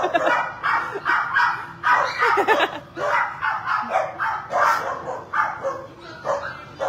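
Small dogs barking and yapping excitedly in a fast, continuous run of short barks, about three a second.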